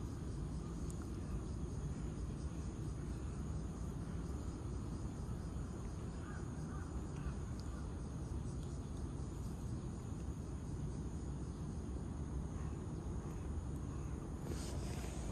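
Steady low outdoor rumble, with a few crow caws about six to seven seconds in.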